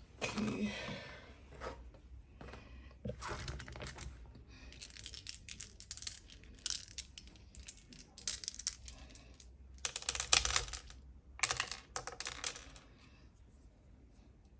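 Small decorative beads clicking and rattling against each other and the fountain as they are handled and dropped in, in irregular clusters of sharp clicks, the loudest burst about ten seconds in.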